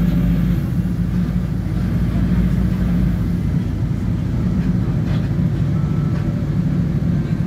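Steady low rumble of a moving road vehicle's engine and tyres on the road, heard from inside the vehicle.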